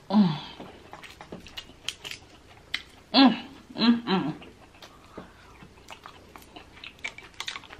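Close-up eating sounds of spicy Dungeness crab legs: shells cracking and crunching in the hands and teeth, with wet chewing. Three short hums from the eater, near the start and about three and four seconds in.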